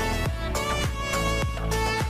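Background music with a steady beat of about two low thumps a second under a sustained melody.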